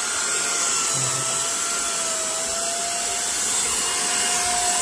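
Electric handheld paint spray gun running on mains power, a steady motor whine over the hiss of air and paint spraying.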